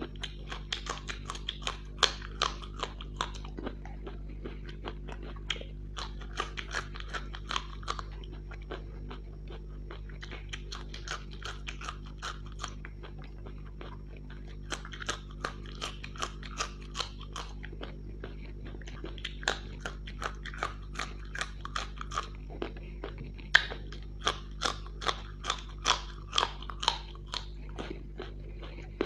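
Close-miked mukbang chewing of crisp fried samosas and raw green chillies: bouts of sharp crunches, several a second, with short pauses between bouts, over a steady low hum.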